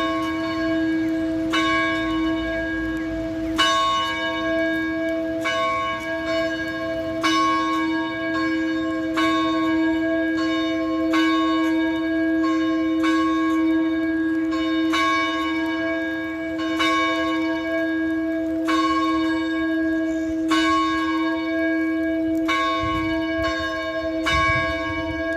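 A single church bell tolling steadily, struck about every two seconds, its low hum ringing on between strokes.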